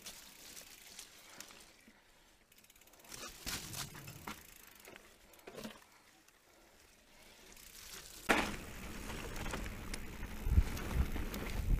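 Specialized Turbo Levo electric mountain bike riding a dirt trail: soft tyre noise with occasional clicks and rattles from the bike. About eight seconds in comes a sharp knock, and then a louder, steady rushing noise with a few heavy thumps as the bike picks up speed on a faster stretch.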